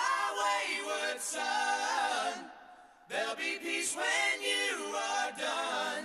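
Music: unaccompanied multi-part vocal harmony singing, two sung phrases with a short pause about halfway through.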